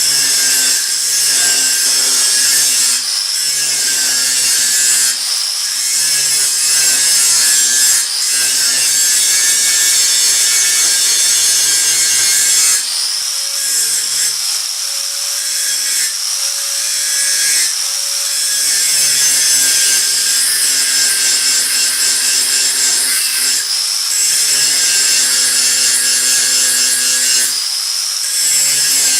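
Steady, loud abrasive sanding or grinding noise, in passes a few seconds long with brief breaks between them.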